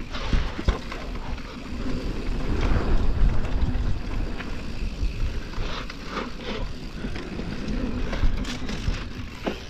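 Mountain bike riding down a dirt trail: a constant noisy rumble of tyres rolling over dirt and rocks, with scattered knocks and rattles from the bike over the bumps.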